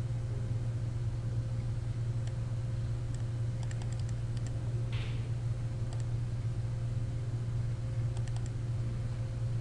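Steady low electrical hum, with scattered faint clicks from working a computer's mouse and keys, a small cluster of them about four seconds in.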